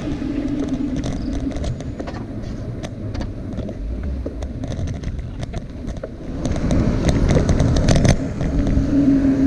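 Road traffic heard from a moving bicycle: a steady vehicle rumble with scattered light clicks and rattles. It grows louder for a couple of seconds from about six seconds in, as a vehicle passes close by.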